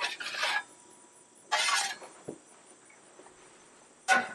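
Metal spatula scraping and clinking on the steel cooktop of a Blackstone griddle in three short strokes.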